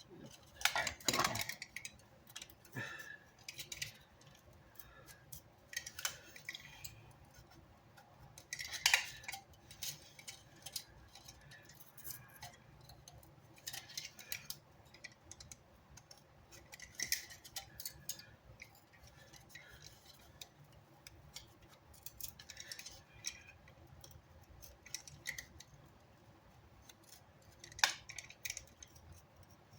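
Irregular crisp snips and small clicks, a few seconds apart, of a replacement subwoofer voice coil former being cut to length along a marked line, mixed with handling noise.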